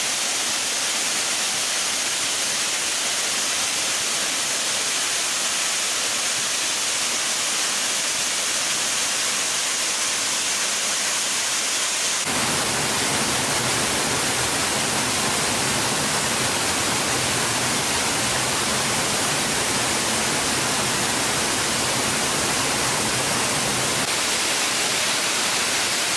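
Waterfall rushing steadily. About halfway through it changes abruptly to a fuller, deeper rush.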